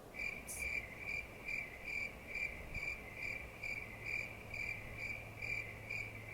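A cricket chirping steadily, about three short, even chirps a second.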